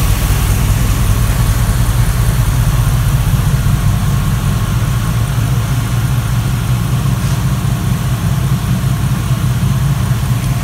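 Computer-controlled V8 in a rat-rod pickup idling steadily with the air-conditioning compressor engaged. The engine computer is still relearning its idle after the battery went dead.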